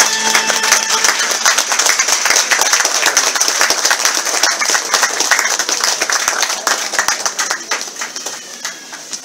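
A congregation applauding, dense steady clapping mixed with crowd voices, that starts as the choir's singing stops about a second in and dies away near the end.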